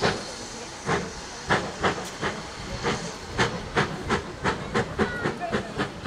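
Steam locomotive working, its exhaust beats sharp and regular, quickening from about one a second to about three a second.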